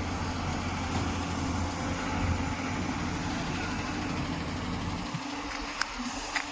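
Heavy diesel engine of a construction vehicle running steadily with a deep, even hum. The low hum drops away about five seconds in, and two short clicks come near the end.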